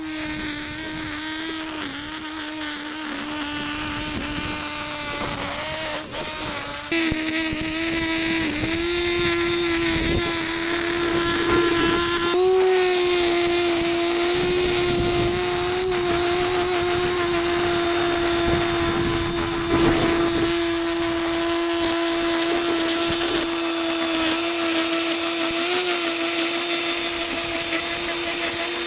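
String trimmer (whipper snipper) running steadily at high speed, a constant high-pitched whine that steps up slightly in pitch and loudness about a quarter of the way through.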